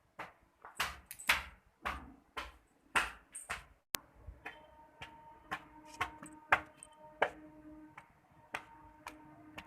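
A series of sharp taps, about two a second, loudest in the first few seconds, with a faint steady hum coming in about four seconds in.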